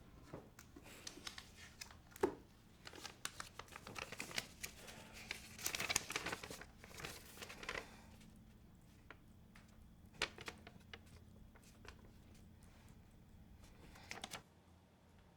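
Soft rustling and crinkling handling noises with scattered sharp clicks and taps, busiest in the first half, then a few isolated clicks. The background drops away suddenly near the end.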